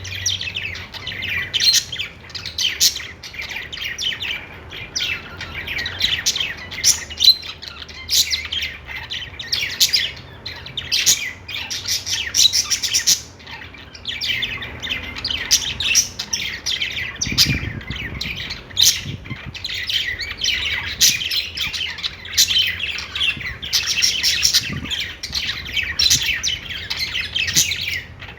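A group of budgerigars (parakeets) chirping and warbling without a break, calls overlapping, with some harsher squawks mixed in.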